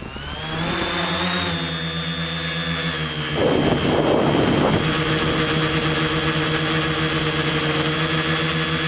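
Electric motors and propellers of an RCExplorer tricopter, heard from its onboard camera. They spool up with a rising whine at takeoff, then hold a steady whirring hum in flight, with a brief rush of noise about three and a half seconds in.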